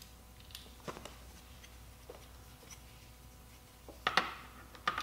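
Faint clicks and taps of an e-bike's front fender and its mounting parts being handled and fitted against the fork, with a louder pair of sharp knocks about four seconds in and another just before the end.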